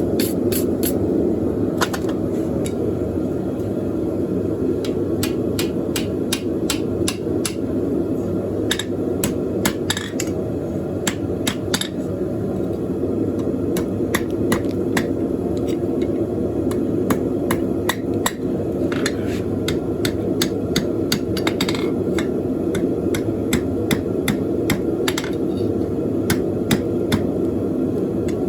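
Hand hammer striking hot steel on an anvil in runs of quick blows with short pauses, each strike ringing briefly. A steady low rushing noise runs underneath.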